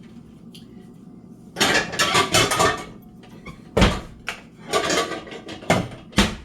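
Kitchen clatter: a rattling run of knocks, then several single hard knocks, as cupboards, dishes and pans are handled.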